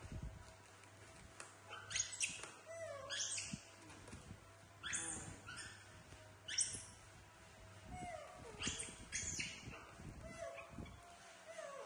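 Baby macaques giving a series of short, high squeaks that rise in pitch, one every second or two.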